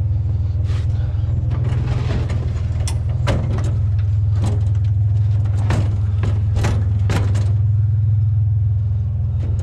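Scrap metal furniture being handled: a dozen or so short clanks and knocks, irregularly spaced, over a steady low rumble.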